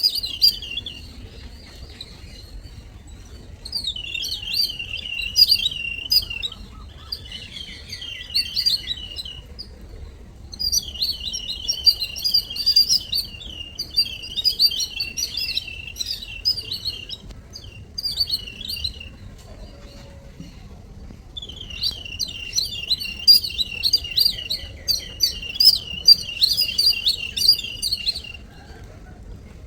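Weaver birds chirping and chattering in several long bouts of rapid, high chirps, with short lulls between bouts.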